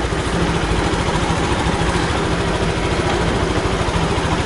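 Suzuki Burgman 125 fuel-injected scooter's single-cylinder four-stroke engine running steadily, a little louder from about half a second in.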